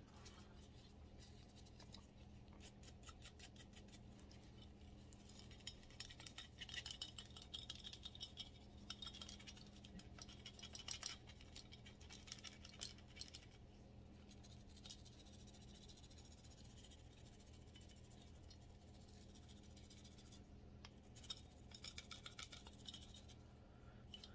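Faint scrubbing of a small cleaning brush on a pistol's slide, in spells of quick back-and-forth strokes with pauses between, over a low steady hum.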